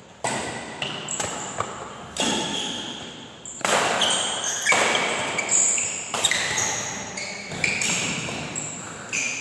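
Badminton rally: rackets striking the shuttlecock in a quick run of sharp hits, with shoes squeaking on the court floor, echoing in a large hall.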